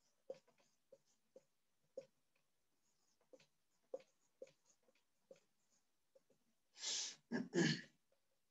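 Whiteboard marker writing on a board: soft ticks and taps about one or two a second as the letters are formed, then three louder rough scraping bursts near the end.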